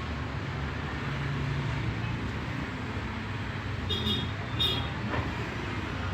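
Steady low background rumble like distant road traffic, with two short high squeaks about four seconds in.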